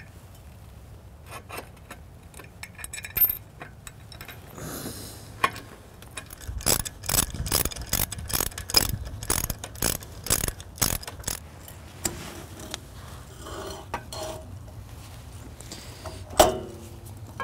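Steel parts clinking and clicking as hardware is fitted by hand under a steel beam. A quick run of clicks, about three a second, comes in the middle, and a single louder metal clank near the end.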